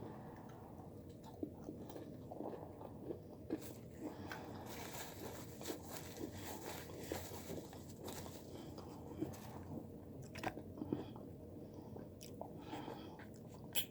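Close-up eating sounds of fried chicken: repeated crunching bites and chewing, with irregular small crackles of the crispy coating.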